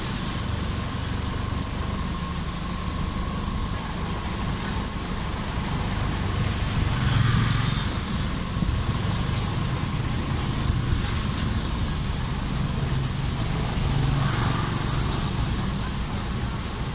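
Road traffic passing close by: car and motorbike engines making a steady rumble that swells as vehicles go past, about halfway through and again near the end.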